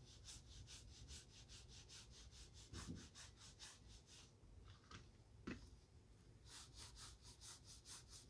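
Leather shoe being buffed during a shoe shine: quick, faint rubbing strokes at about five a second, in runs at the start and again near the end, with a couple of dull knocks in the pause between.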